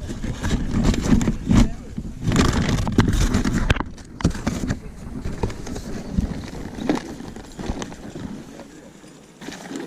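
Indistinct voices in the background with a heavy low rumble, which eases about four seconds in; after that come quieter chatter and a few scattered knocks.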